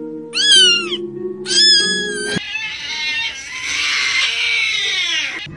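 Two short cat meows, each rising then falling in pitch, over a held music chord. Then a harsher, noisier cat-like sound lasts about three seconds, falls in pitch near its end and cuts off suddenly.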